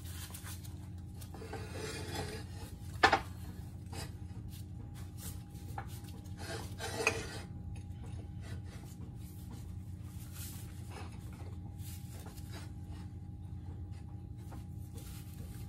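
Metal parts handled by hand on a shop press bed: a differential case and speedo ring gear scraping and clinking against the steel press plates, with one sharp clank about three seconds in and a longer scrape a few seconds later.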